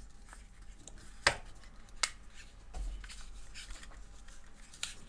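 Plastic clicks and handling noise of a Hohem iSteady V2 foldable smartphone gimbal being folded up: two sharp clicks about one and two seconds in, a fainter one near the end.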